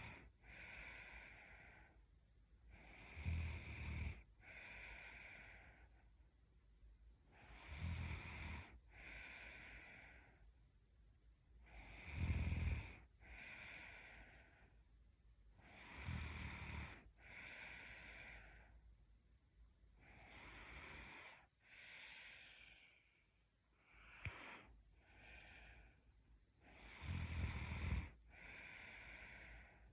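A sleeping woman snoring in a steady rhythm, about once every four seconds. Each breath in carries a low snore and is followed by a softer breath out. One breath a little past the middle is shorter and weaker.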